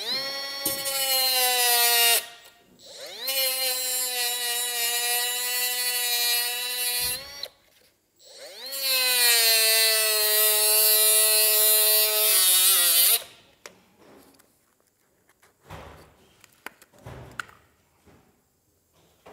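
Angle grinder cutting open a tailgate gas strut's metal housing to reach the spring inside, run in three bursts of about two, four and four and a half seconds, each spinning up and winding down. After the third burst it falls quiet, with a few light knocks.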